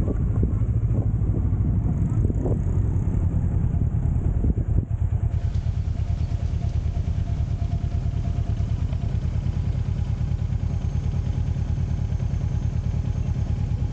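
Motorcycle engine running steadily with an even low pulse, with a few sharp knocks in the first five seconds.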